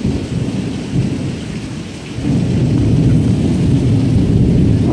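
Thunder rumbling after a lightning flash, swelling louder about two seconds in and staying there, over steady rain.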